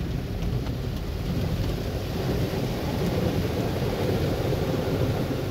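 Ryko SoftGloss MAXX 5 soft-cloth car wash scrubbing over the car, heard from inside the cabin as a steady low rushing noise of the cloth strips and water spray on the body and glass.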